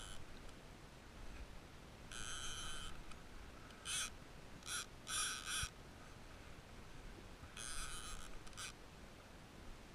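A fishing reel's ratchet clicker buzzing in about six short, irregular bursts as line is pulled off the reel, with a faint hiss of wind and water between them.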